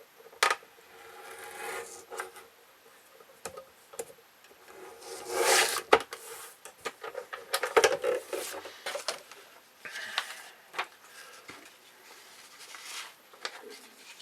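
Paper being handled and trimmed on a paper cutter: scattered sharp clicks and rustling, with a longer scraping swish about five seconds in and a cluster of clicks and scrapes around eight seconds.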